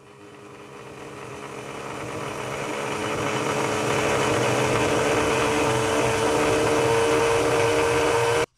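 Small brushed universal motor spinning a plastic propeller, run up to speed through a triac dimmer-type speed regulator. Its whine and buzz grow louder over the first few seconds, then hold at high speed with a steady whine that creeps slightly higher in pitch. The sound cuts off suddenly near the end.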